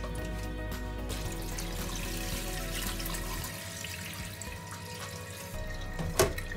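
Background music over water sloshing as rice is swished in a rice-cooker pot and the cloudy rinse water is poured off into a metal sink, with a single knock near the end.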